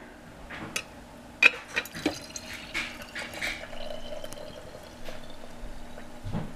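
Gravity-fed tea maker set down on a mug with a sharp clink about a second and a half in, then steeped tea trickling steadily down through its bottom valve into the mug.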